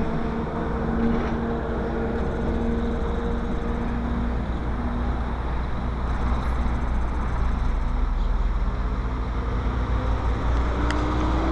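Road noise inside a moving car's cabin: a steady low rumble, with a low hum that fades out about four seconds in and a tone rising in pitch near the end.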